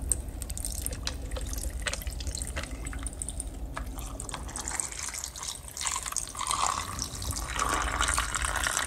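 Hibiscus-strawberry lemonade pouring in a thin stream into a glass of ice cubes, splashing and trickling over the ice. Light clicks of the ice come in the first half, and the splashing grows louder and fuller as the glass fills.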